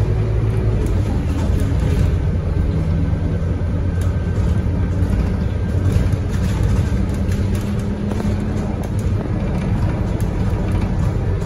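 Scania K230UB single-decker city bus's five-cylinder diesel running under way, heard from inside the cabin as a steady low drone with road noise. The engine note climbs slightly about two and a half seconds in and again around six to seven seconds in.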